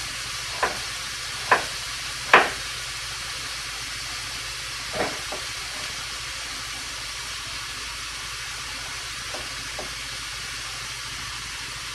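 Beef and onion frying in a pan with a steady sizzle. A few sharp knocks come in the first few seconds, about one a second, with another at about five seconds and two faint ones later.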